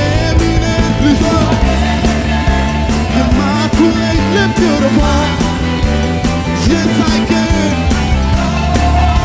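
Live church praise band playing a loud, upbeat contemporary praise song, with a steady driving bass and drums and singing over it.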